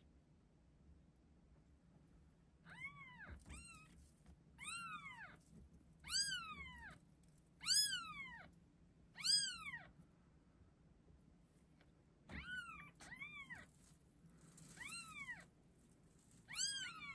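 Newborn Exotic Shorthair kittens mewing: about ten short, high-pitched mews, each rising then falling in pitch, starting about three seconds in, with a pause of a couple of seconds midway.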